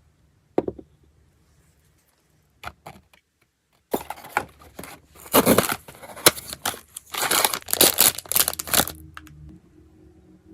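Blind-box packaging being opened by hand: a few light taps, then several seconds of loud tearing and crinkling of a plastic wrapper from about four seconds in.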